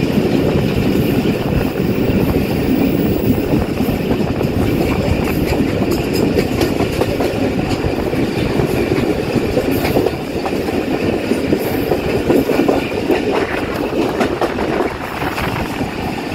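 Passenger train running on the rails: a steady rumble of the coach with wheels clacking over the track. It gets a little quieter from about ten seconds in.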